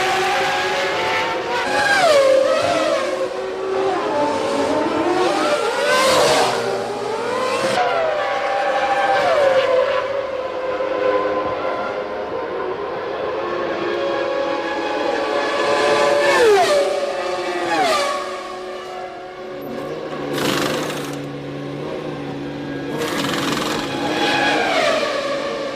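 Formula One race cars' engines at high revs, several at once, climbing in pitch and dropping sharply through gear changes and braking.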